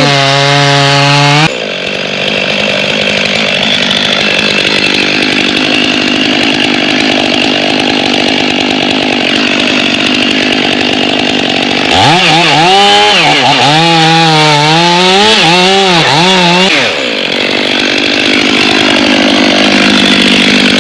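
Chainsaw running hard and cutting into wood, its engine note dropping under the load. About twelve seconds in it is revved up and down for several seconds, then goes back to a steady cut. The operator says the saw's chain teeth are damaged, making it cut at an angle.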